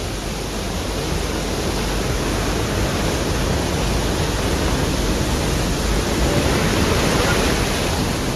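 Waterfall: a loud, steady rush of falling water, swelling slightly near the end.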